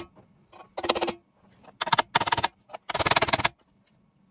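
Hammer driving a center punch against the steel tube of a bolt-in roll cage, marking hole locations for drilling. The taps come in short clusters, about four in all, with ringing from the metal tube.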